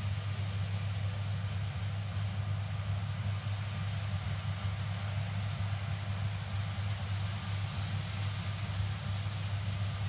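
John Deere S780 combine harvester running while harvesting rice, a steady low diesel drone with an even hiss above it.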